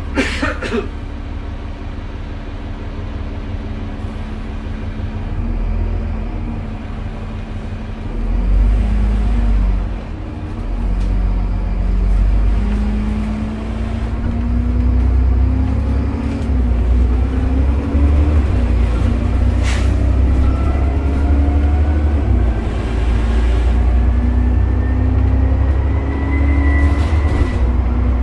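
Dennis Trident double-decker bus's Cummins ISCe six-cylinder diesel pulling under way, heard from inside the lower deck with heavy low rumble. The loudness dips about ten seconds in and builds again, and through the second half a whine from the loud axle rises steadily as the bus gathers speed. Two sharp clicks, one just after the start and one about twenty seconds in.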